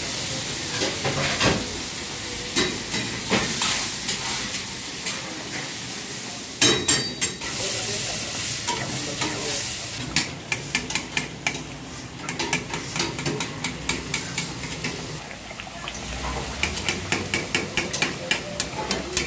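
Chicken karahi sizzling and bubbling in steel woks over gas burners, with a spatula scraping and clinking against the wok as it is stirred. A loud clatter of metal about seven seconds in, then quick repeated clicks of the spatula on the pan through the second half.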